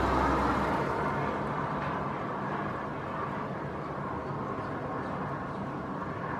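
Passenger airliner's engines running at a distance, a steady roar that eases off slightly over the first seconds.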